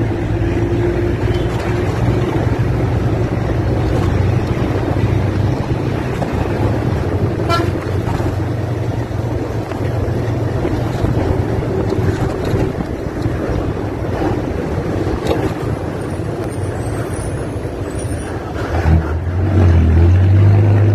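The Hino-powered diesel engine of an Ashok Leyland Viking bus, heard from just behind, running with a deep steady exhaust drone. The drone is strongest at the start and again near the end, with road and traffic noise in between. A brief horn toot comes about seven and a half seconds in.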